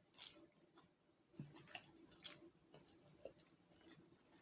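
Faint chewing, with scattered soft mouth clicks and smacks.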